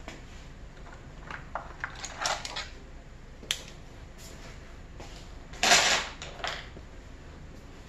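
Pens and pencils clicking and rattling against each other and against a plywood desk organizer as they are handled: a few short clatters, the loudest about six seconds in.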